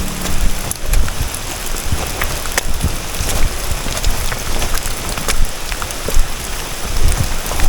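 Steady rain, with many individual drops ticking sharply close to the microphone over a continuous hiss and a low rumble.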